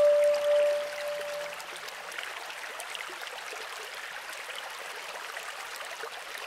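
The last held note of the music fades out in the first second and a half, leaving a steady trickle of stream water running over stones.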